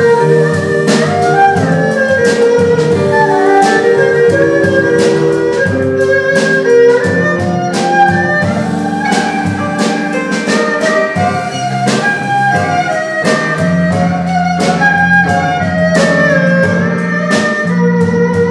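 Instrumental music, jazz-flavoured: a melody moves over held chords and a bass line, with regular percussive hits.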